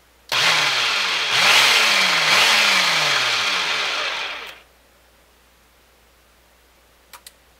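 Food processor motor running in one pulse of about four seconds, spinning its blade through an already thick, emulsified eggless mayonnaise of soy milk and canola oil; the motor's pitch sags and recovers as it works the mix, then it stops.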